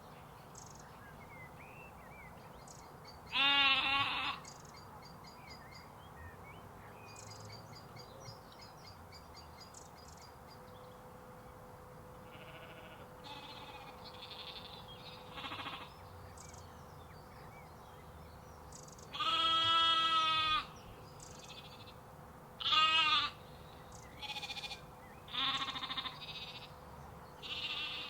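Sheep and lambs bleating over a steady low background. Loud, quavering bleats come about four seconds in, a long one around twenty seconds, and several shorter ones near the end, with fainter, higher bleats in between.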